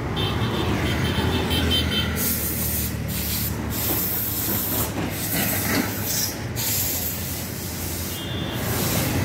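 Road traffic passing close by: motorcycles and a small pickup truck driving past, a steady low engine rumble under a rushing hiss of tyres and air that swells in the middle. A high rapid pulsing beep sounds briefly near the start and again near the end.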